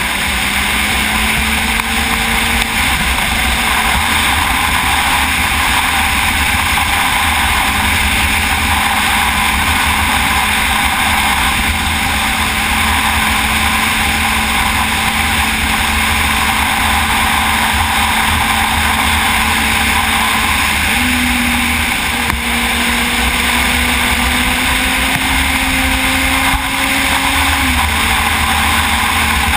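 Sport motorcycle riding at road speed: the engine holds a steady note under heavy wind rush on the microphone. The engine note steps up about two-thirds of the way through, climbs slightly, and falls back near the end.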